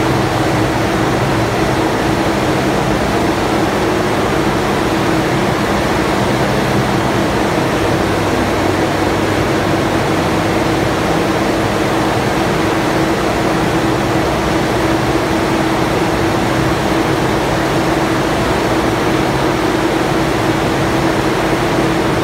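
Hydroelectric turbine running, heard from inside the turbine pit beside its main shaft: a loud, steady rushing noise with a constant mid-pitched hum.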